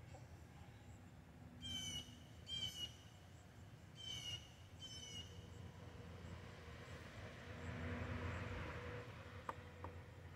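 Four short, high trilling bird calls, in two pairs, in the first half. Later a soft rushing noise swells and fades, and near the end come two light taps as the hen pecks at the wooden board.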